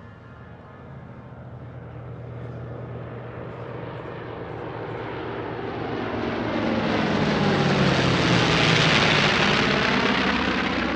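Formation of piston-engined warbird aircraft flying past: a steady propeller and engine drone that grows louder over several seconds, is loudest about nine seconds in, then starts to fade.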